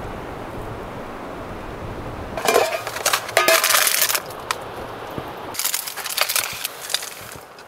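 Steady wind noise, then, from about two and a half seconds in, two stretches of crackling and crinkling as plastic food containers and packaging are handled close to the microphone.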